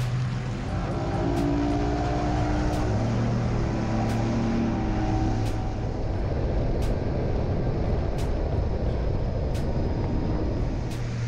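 Bass boat outboard motor running as the boat gets underway and runs at speed, with wind and water rushing past the hull and a few sharp knocks, likely the hull hitting chop.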